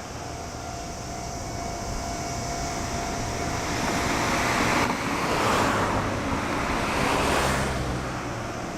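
Vehicles passing close by: a rush of noise builds, swells twice, about five and seven seconds in, then fades away.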